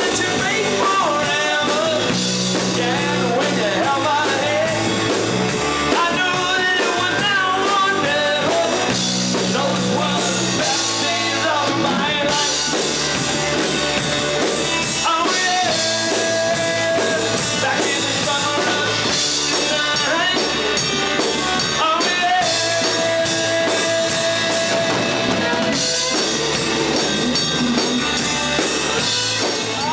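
Rock band playing: a male lead vocal sings over electric guitar, bass guitar and drum kit, with some long held notes.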